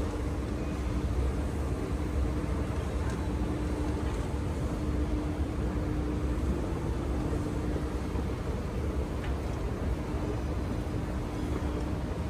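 Steady background ambience with a heavy low rumble and a faint steady hum that drops in and out.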